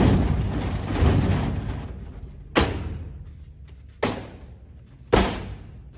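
Heavy thumps against a vending machine, one after another about a second to a second and a half apart, each dying away quickly. Over the first two seconds they run into a clattering rattle.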